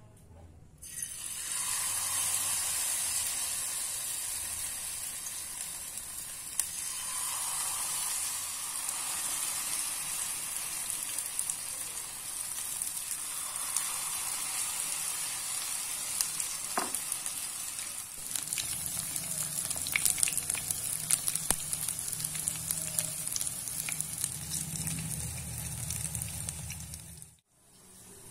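Egg with corn kernels frying in hot oil in a nonstick pan: a loud sizzle starts about a second in as the mixture hits the oil, then runs on steadily. A spatula works through the pan, and sharp spattering pops come thick in the second half.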